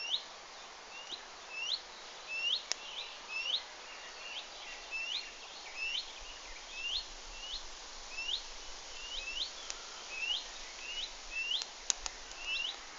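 A small bird calling over and over: short chirps, each hooking upward in pitch, about two a second. A couple of faint clicks stand out about three seconds in and near the end.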